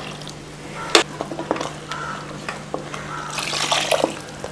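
Water poured from a steel mixer-grinder jar into a pot of thick tomato curry. A sharp metal knock comes about a second in, then a few light taps, and the pour splashes and hisses loudest near the end.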